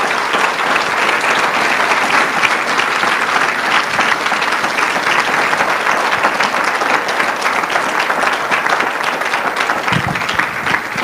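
A large roomful of people clapping their hands in sustained, dense applause.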